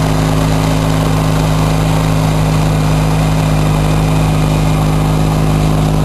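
Sears GT18 garden tractor's engine running steadily, driving its front-mounted snowblower as it throws snow, an even drone that holds the same pitch throughout.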